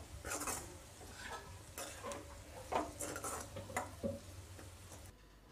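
A spoon stirring and scraping fried potato sticks around a metal kadai, with a string of irregular scrapes and clinks against the pan, some ringing briefly. It stops about five seconds in.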